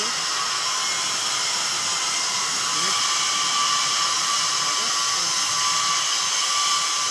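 Kaiyuan submerged arc welding machine running at 550 amps: a steady hiss with several high, steady whining tones over it.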